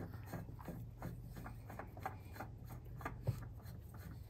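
Hands gripping and spinning a new oil filter onto a Kioti CK30 tractor's engine, screwing it on hand tight: a run of short, uneven rubbing and scraping strokes, with one sharper knock a little after three seconds in, over a faint low hum.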